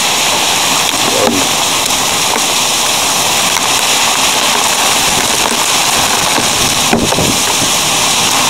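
Heavy hail falling fast, a dense steady patter of hailstones striking, with a sharper knock about a second in and another near the end.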